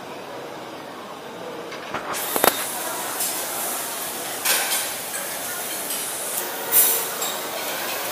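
Busy buffet dining-hall hubbub: crowd chatter in the background, with clinking and clattering of dishes and cutlery and a sharp clack about two and a half seconds in.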